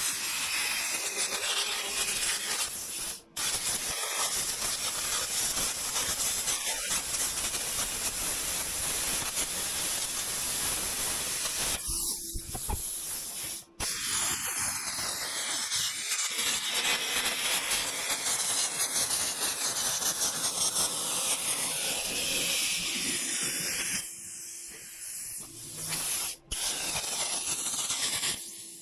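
Metal-cutting torch hissing steadily as it cuts through the steel of a wrecker bed, with a few brief breaks.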